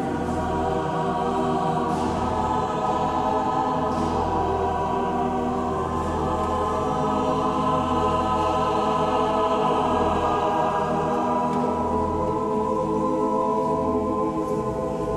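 Choir singing slow, held chords that echo through a large stone cathedral nave.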